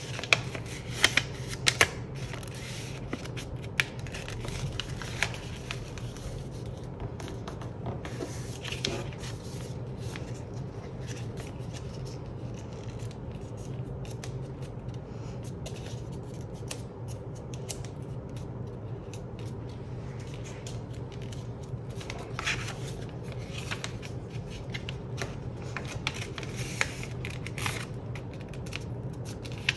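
A sheet of paper being folded and creased by hand, with crisp crackles and rustles, sharpest in the first couple of seconds. A steady low hum runs underneath.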